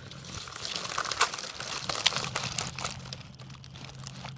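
Dry leaf litter and pine needles crinkling and crackling, with irregular small snaps, from movement close to the ground. A faint steady low hum runs underneath.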